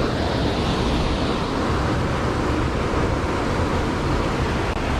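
Waterfall and rushing stream water, a steady loud rush.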